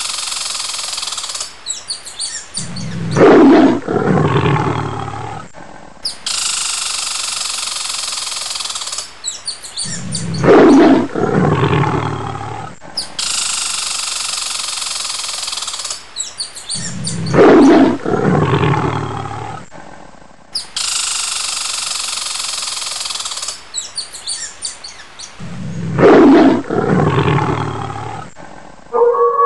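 Lion roaring: a long raspy snarl, then a loud deep roar that falls in pitch, the same call repeated four times at even spacing about every seven seconds.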